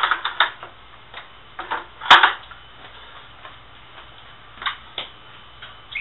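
Scattered clacks and knocks of parts being handled on a Thor washing machine being assembled, with the loudest, sharpest knock about two seconds in.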